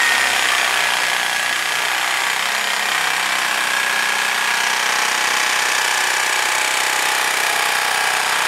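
Reciprocating saw running steadily as its blade cuts through the wooden handle scales of a knife clamped in a vise, trimming the excess wood down to the knife's spine.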